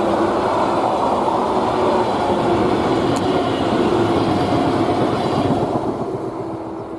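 Freight train rolling past on the rails with a loud, steady rumble of wagons and a sharp click about three seconds in. The noise fades away over the last second or so as the train moves off.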